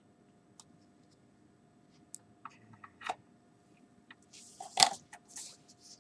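Light clicks of a plastic cuvette being handled, then near the end a single sharp knock as it is set into the sample holder of a SpectroVis Plus spectrophotometer, with brief rustling around the knock.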